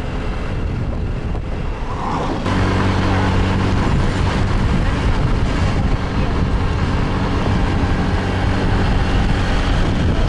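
Motorbike engine running steadily while riding, with wind rushing over the microphone. About two and a half seconds in, the sound turns louder with a steady low engine hum.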